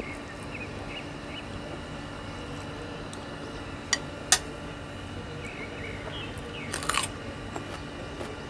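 Eating sounds at the table: two sharp clicks, of utensil or shell, about four seconds in and a short noisy burst about seven seconds in, over a steady low hum.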